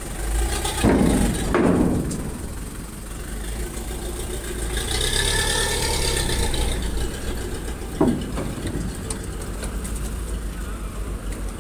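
A low, steady engine rumble, with a rushing noise that swells and fades in the middle and a few brief voices.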